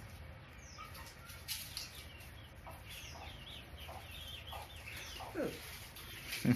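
Chickens clucking, with many short calls repeated throughout.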